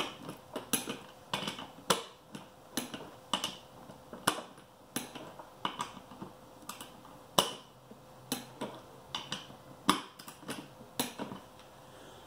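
Sharp metallic clicks, one after another at an uneven pace of roughly one or two a second, from tools being worked around a beadlock wheel's clamp-ring bolts.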